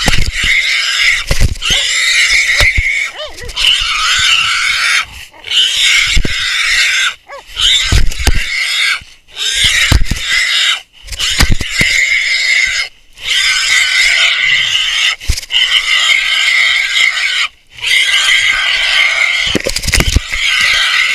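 Caught wild hog squealing in long, loud screams, one after another with brief pauses between them. Low thumps come from the hog being jostled against the dog-mounted camera.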